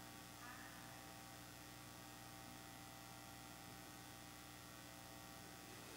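Near silence with a faint steady electrical mains hum.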